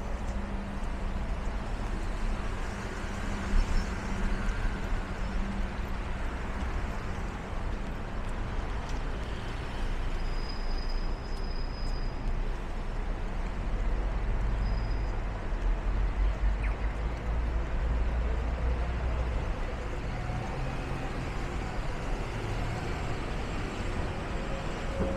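Traffic on a wet city street: a steady hiss of rain and tyres with the low rumble of passing vehicles, heavier for several seconds past the middle as a larger vehicle goes by.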